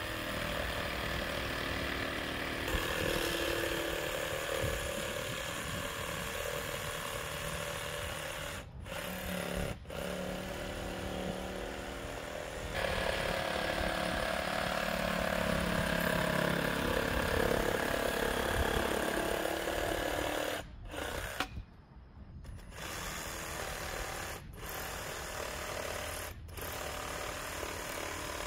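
RIDGID 18V brushless cordless jigsaw cutting through plywood, running in long stretches with several short breaks.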